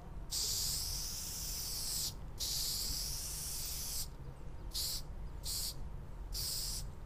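Aerosol spray paint can spraying in strokes onto a wall: two long hisses of about two seconds each, then three short bursts in the second half, over a steady low background rumble.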